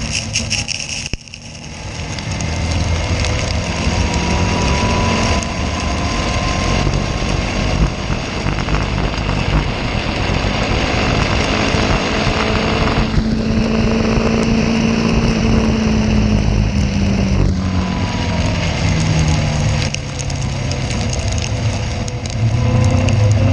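Caterham race car engine heard onboard at racing speed, its note rising and falling as the driver accelerates, lifts and changes gear, over a steady rush of wind and road noise. Loudness dips sharply about a second in.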